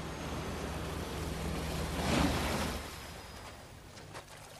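Motorboat engine running with water rushing along the hull; the rush swells about two seconds in, then the sound dies down as the boat slows toward shore.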